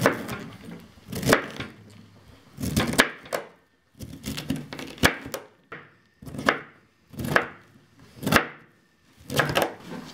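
Kitchen knife chopping raw cauliflower on a plastic cutting mat: about nine crunching cuts, roughly one a second.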